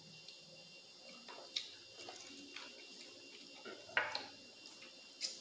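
Quiet eating sounds: chewing and mouth clicks from eating fried chicken by hand, with a few sharp smacks, the loudest about four seconds in.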